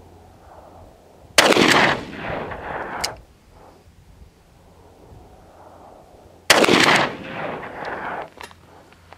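Two shots from a Taurus Raging Bull .44 Magnum revolver, about five seconds apart. Each is a sharp blast followed by about a second and a half of echo dying away.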